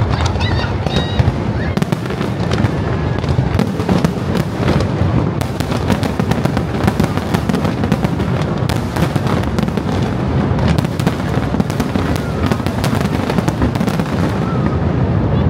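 Aerial fireworks going off in a continuous rapid barrage, with overlapping bangs and crackling and no pause.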